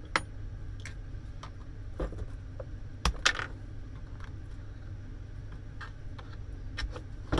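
Scattered metallic clinks and knocks of a garden shredder's broken gearbox parts being handled during dismantling, with a louder pair of knocks about three seconds in, over a steady low hum.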